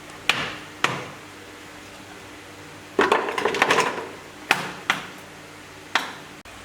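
Sharp wooden knocks and clatter, like small wooden pieces being tapped or handled: two single knocks, then a quick run of clatter about three seconds in, then three more spaced knocks.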